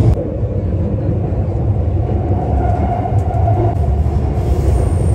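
Subway train running, heard from inside the car: a steady low rumble, with a faint whine coming in for a couple of seconds midway.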